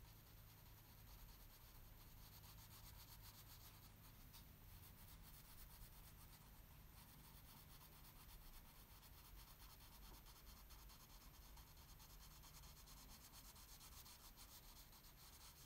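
Faint scratchy rubbing of a wax crayon stroked back and forth on drawing paper, coloring in an area.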